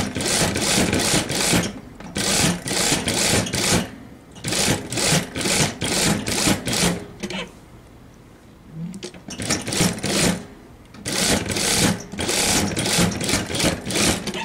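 Industrial single-needle lockstitch sewing machine stitching in about five short runs of one to three seconds, stopping briefly between runs while the fabric is pivoted at the corners of a squared seam.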